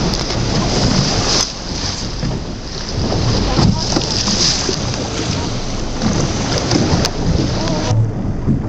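Wind buffeting the microphone on a small boat at sea, over the boat's engine and the wash of water.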